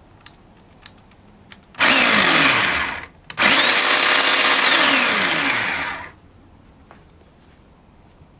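Corded electric chainsaw run twice in short bursts, the motor and chain spinning up to speed and winding down each time. It is a test run after repair, showing the saw works.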